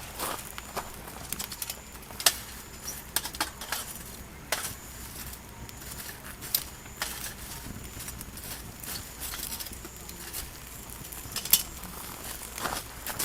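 Irregular sharp clicks and light taps, scattered unevenly, the loudest a little over two seconds in and near the end.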